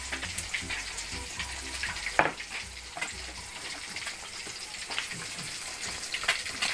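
Fish frying in hot oil in a wok, a steady sizzle, with a single sharp knock about two seconds in.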